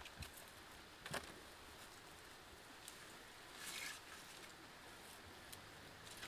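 Faint crackling and rustling of dry sticks and leaf litter underfoot and in hand while gathering firewood, with a sharp snap about a second in and a brief rustle near four seconds.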